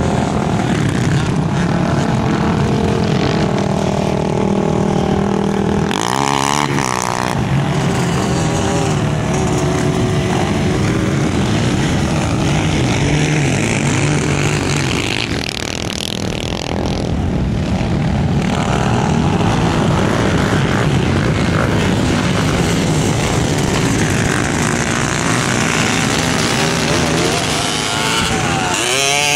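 Off-road vehicle engines, the quads and three-wheelers of a sand drag, running and revving. Their pitch rises and falls several times near the end.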